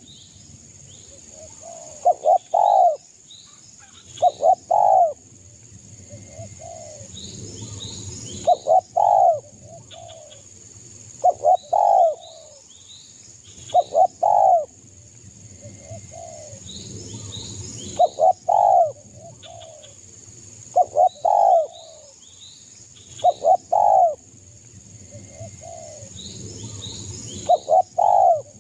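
Spotted dove cooing: loud multi-note phrases repeated about every two and a half seconds. Smaller birds chirp in between, and a steady high-pitched whine runs underneath.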